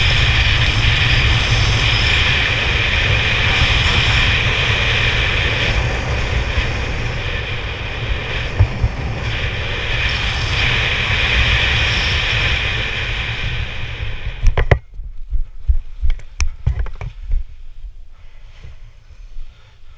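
Wind rushing over a helmet-mounted camera's microphone during a parachute canopy descent, steady until it cuts off suddenly at touchdown about 15 seconds in. Scattered thumps and rustles follow as the skydiver lands on the grass.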